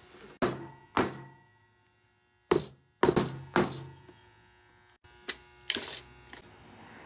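Hammer blows driving new stainless T-nuts into a wooden seat base: about seven hollow knocks in irregular groups, each with a short ring.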